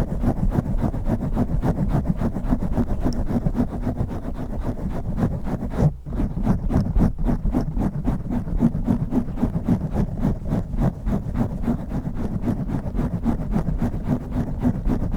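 Microphone being scratched fast with fingernails and metal nail rings: a dense, rapid, unbroken scratching rustle, heavy and dull in the low end, with a brief break about six seconds in.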